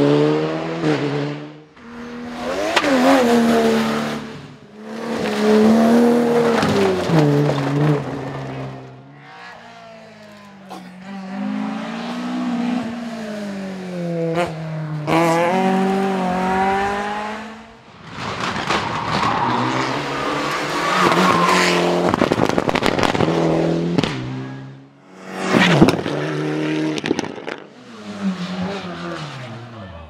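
Rally cars at full throttle on a tarmac stage: several separate passes, each engine revving hard and dropping through gear changes as the car swings through a corner, then fading as it drives away.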